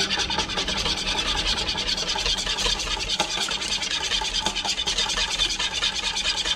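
Metal wire whisk beating eggs in a bowl, its wires scraping and rattling against the bowl in fast, even strokes.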